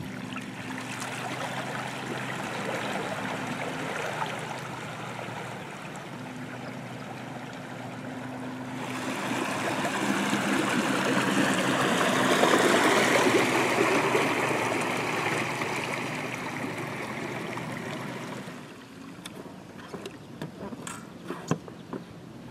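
Water rushing and splashing around the plastic-barrel pontoons of a small boat driven by a trolling motor, with the motor's steady low hum underneath. The water noise builds to its loudest about halfway through as the boat passes close, then fades, leaving a few light knocks near the end.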